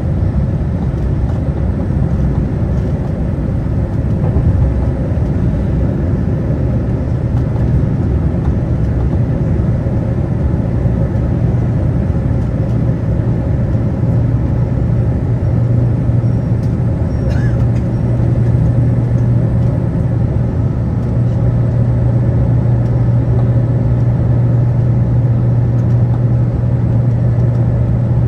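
Cabin noise inside a Boeing 787-9 airliner: a steady, loud rumble of engines and airflow, with a low hum that grows stronger about halfway through.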